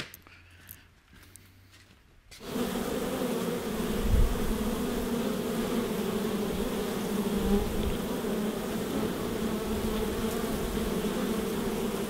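A crowd of honey bees buzzing steadily at a hive entrance, cutting in suddenly about two seconds in after a near-quiet start. There is a brief low thump about four seconds in.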